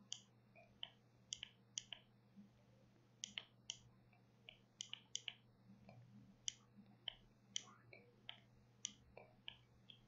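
Faint, sharp clicks of the BBC micro:bit's button B being pressed and released over and over in irregular groups, keying a Morse code message as dots and dashes.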